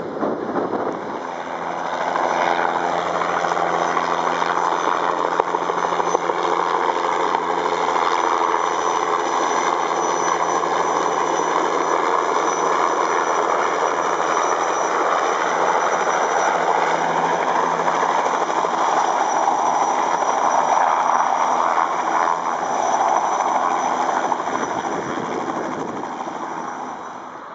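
Bell 206B-3 JetRanger III helicopter in flight close by, its turbine engine and two-blade rotor running loud and steady. The sound builds over the first couple of seconds and fades away near the end.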